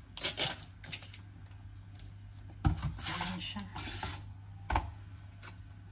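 Plastic tofu tray being opened and handled over a plastic colander: scattered clicks and rustles, with a sharp knock about three seconds in and another near the end as the tofu block is set into the colander.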